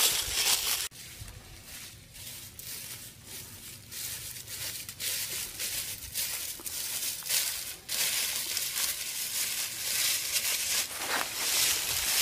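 Footsteps crunching through deep, dry fallen leaves at a walking pace, after a louder rustle that cuts off abruptly about a second in.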